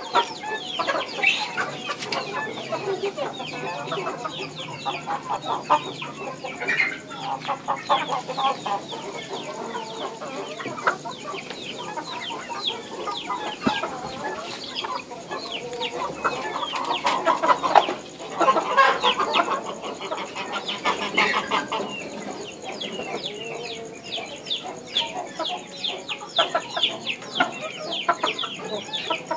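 Chickens clucking, with many short, quick chirping calls overlapping throughout and louder bouts of clucking a little past the middle.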